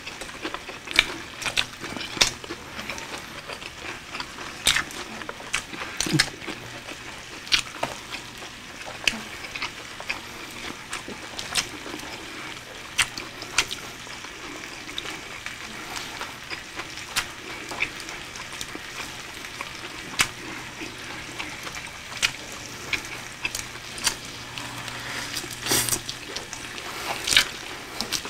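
Close-miked eating: wet chewing of lettuce wraps and mouth sounds, with scattered sharp clicks from chopsticks and plastic containers, over a steady faint hiss.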